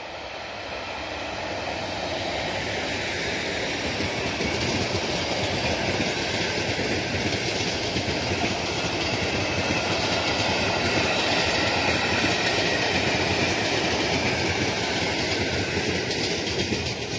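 Locomotive-hauled passenger train passing at speed: a steady rumble with wheels clattering over the rail joints, growing louder over the first few seconds as the coaches pass.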